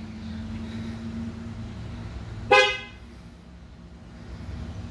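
2019 Mazda 3's horn giving one short chirp about two and a half seconds in: the lock confirmation from the key fob, pressed in an attempt to roll the windows up. A faint steady hum is heard under it.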